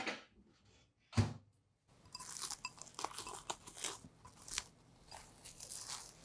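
A sharp click at the start and a dull thump about a second in, then plastic cling film crinkling and crackling as it is peeled back off a glass bowl.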